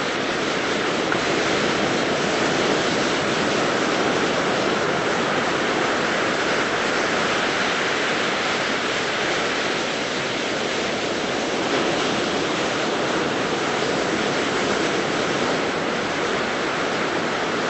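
Ocean surf washing onto a beach: a steady rushing noise.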